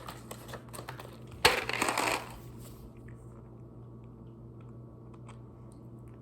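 LemonHeads hard candy handled in its cardboard box and taken to the mouth: light clicks, then a brief loud rattling crunch about one and a half seconds in.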